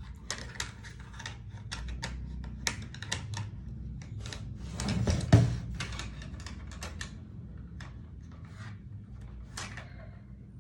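Rapid plastic clicks and knocks as a Logitech K480 keyboard is handled and its batteries are fitted into the battery compartment on the back, with one louder thump about five seconds in.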